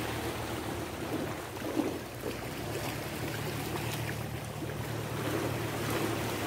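Small sea waves washing and splashing against shoreline rocks, over a steady low motor hum.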